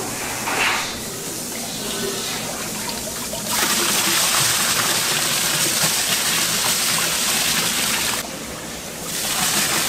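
Water running hard and steady, a rushing hiss that grows louder about a third of the way in and dips briefly near the end.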